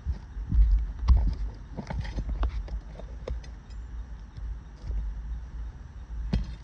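Nails being pried out of brittle asphalt roof shingles: a string of irregular knocks, clicks and scrapes from a hand tool on the shingles, with heavier thumps about a second in.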